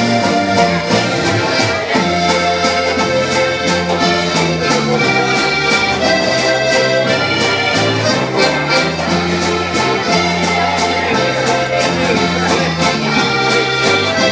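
Live polka band playing an instrumental passage: accordions carry the melody over a low bass line and a steady, even beat.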